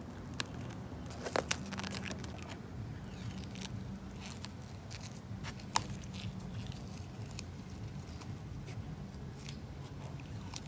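Masking tape being peeled off fresh Plasti-dip rubber coating on motorcycle bodywork: faint tearing and crackling with a few sharp clicks, the sharpest near the middle, over a low steady hum.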